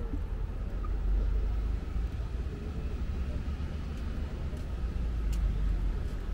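Street traffic noise with a steady low rumble, and faint voices near the start.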